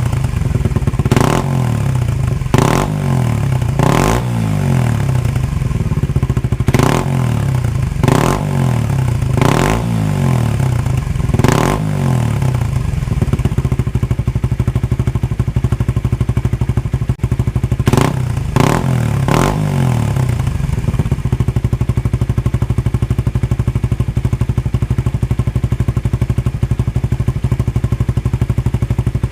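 Suzuki Raider R150 Fi's single-cylinder engine running through an aftermarket RacingLine back-pressure exhaust, given about ten quick throttle blips in the first twenty seconds, then left idling steadily.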